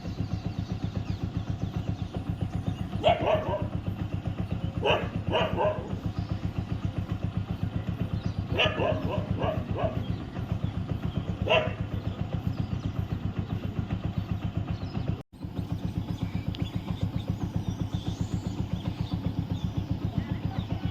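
Dogs barking in short groups of one to three barks during the first half, over the steady chugging of an idling engine that runs throughout.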